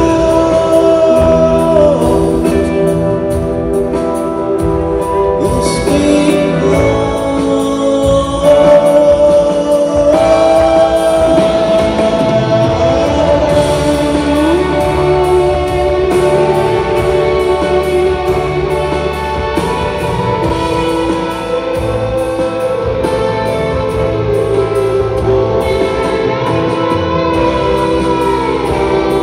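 Live rock band playing a slow song, a lead voice singing long held notes over electric guitars, keyboards and drums, heard from the audience in a large theatre hall.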